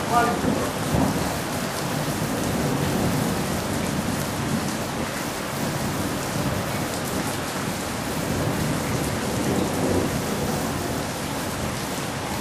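Heavy rain pouring steadily onto hard surfaces during a thunderstorm, with low thunder rumbling underneath.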